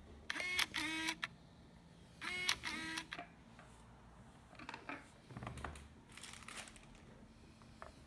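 Two short two-note tones about two seconds apart, each stepping from one held pitch to another, followed by a few faint clicks and a soft low thump.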